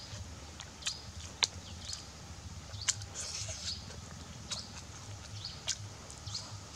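Small birds chirping in short, quick falling calls, with a few sharp clicks and light handling sounds as grilled fish and rice are picked apart by hand, over a low steady hum.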